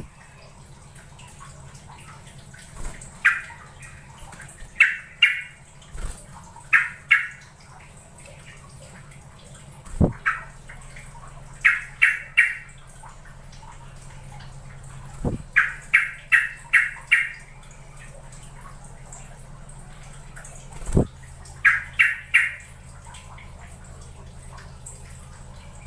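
Sooty-headed bulbul (trucukan) calling in short bursts of two to four quick notes, repeated every couple of seconds, over a low steady hum with a few sharp clicks.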